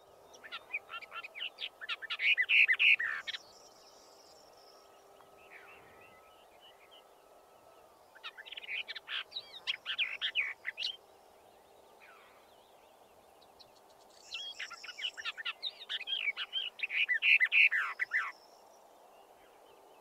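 Western Orphean warbler singing in a field recording: three phrases of rapid, repeated warbling notes, each two to four seconds long, with pauses of several seconds between them, over a steady low hiss.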